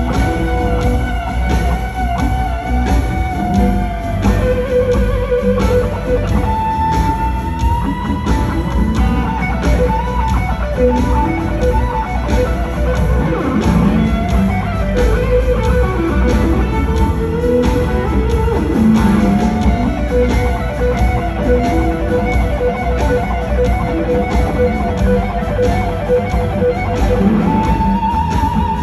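Live blues-rock band with an electric guitar lead playing long sustained and bent notes over the bass and drums; one note is held for many seconds in the second half.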